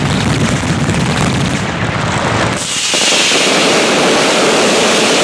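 Fireworks display near its finale: a dense rapid barrage of bangs. About two and a half seconds in, this gives way to a loud, continuous high hissing and crackling as a ground-level wall of fire and sparks goes off.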